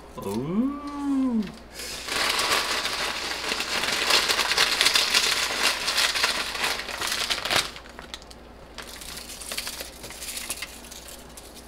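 Kettle-cooked potato chips being crushed by hand, a dense crackling crunch for about six seconds that drops to faint scattered crinkles near the end. At the very start, a brief voice glides up and down.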